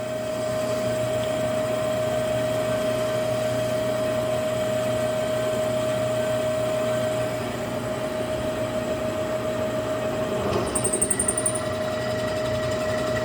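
Milling machine spindle running steadily with a drill bit cutting into a cast iron flywheel hub, a constant hum under it. About ten and a half seconds in there is a brief fluttering, high squeal from the cut.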